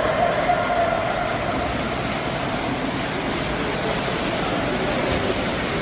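Water splashing steadily as a person swims through a pool.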